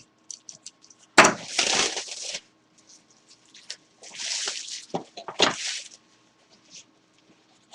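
Mystery jersey box packaging being opened and handled: two bursts of crinkly rustling, each with a sharp snap, about a second in and again around five seconds in, with small ticks between.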